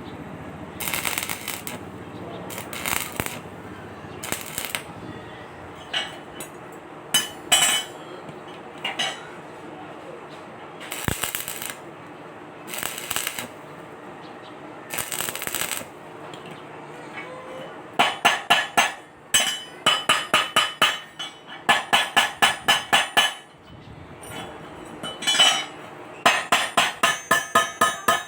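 A hammer striking metal in fast runs of ringing blows, about six or seven a second, starting a good way in. Before that come a series of short separate noisy bursts, each lasting about a second.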